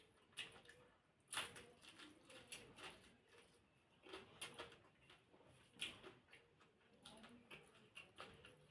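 Close-miked eating: soft, irregular chewing and mouth clicks, a few a second, with a louder crunch or smack about a second and a half in and another near six seconds.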